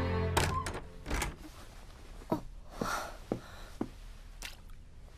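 Background music cuts off, then a handful of soft knocks and thuds with a brief rustle in a small room.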